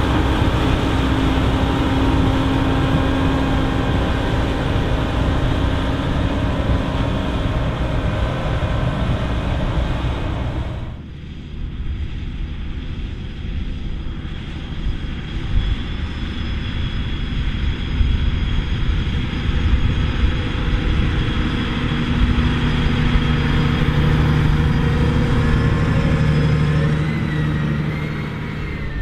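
Ropa Panther sugar beet harvester running hard while its elevator unloads beets into a trailer, a dense, steady machine noise. About eleven seconds in this cuts to a John Deere 8R 370 tractor pulling a loaded tipper trailer across the field: a lower, steadier engine rumble whose tone wavers up and down near the end.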